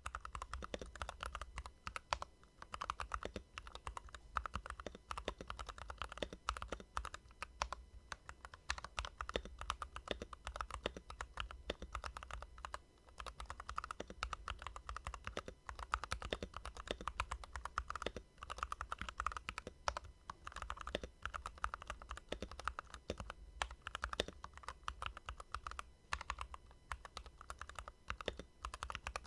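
Typing on a Keychron V2 65% gasket-mounted mechanical keyboard with its stock switches and keycaps: a steady run of quick keystroke clacks with short pauses.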